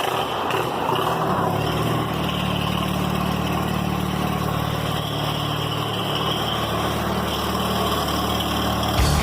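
A tractor engine idling steadily.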